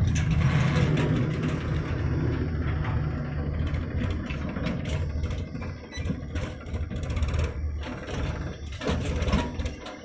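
Diesel engines of a JCB 3DX backhoe loader and a farm tractor running, with a steady low hum that eases off about eight seconds in. Short clanks and rattles come throughout, thicker near the end, as the tractor reverses its trailer.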